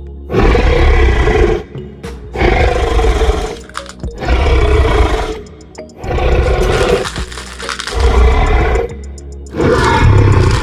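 Five loud, noisy bursts, each about a second long and about two seconds apart, over background music.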